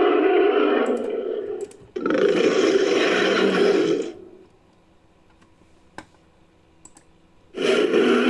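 Monster roar sound effect for an infected gorilla, made from layered gorilla and creature roars. Two long, rough roars follow one another, the second fading out about 4 seconds in. After a near-quiet pause with a single click, another roar starts near the end.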